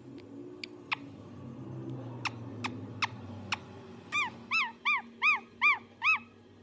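A parrot makes a few sharp clicking chirps, then a quick run of six short rising-and-falling squeaky calls near the end, about two and a half a second.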